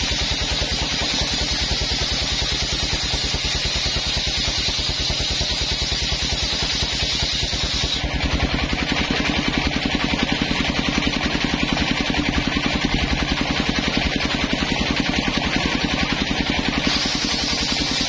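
Engine-driven homemade table circular saw ripping coconut-wood planks. The engine runs steadily throughout. The blade's high cutting noise is strong at first, drops about eight seconds in between boards, and comes back near the end as the next plank is fed.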